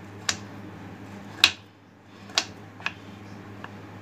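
Knife blade shaving a block of dark compound chocolate on a wooden board: about five sharp, irregular cutting clicks, one of them faint near the end. A steady low hum runs underneath.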